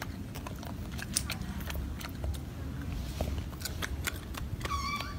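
Golden snub-nosed monkey biting and chewing food: a scatter of small crisp clicks and crunches. A brief high-pitched call comes near the end.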